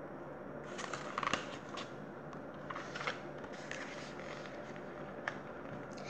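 A paperback picture book being handled, with its pages rustling and a few short taps and scrapes. The noises come in scattered bursts, the loudest about a second in.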